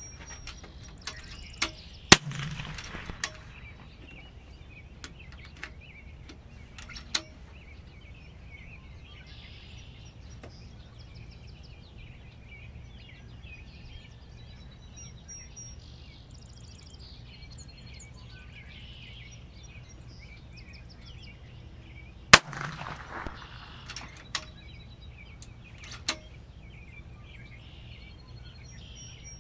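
Two shots from an FX Impact PCP air rifle, each a sharp crack, about twenty seconds apart, with a few lighter clicks before and after each shot. Birds chirp throughout.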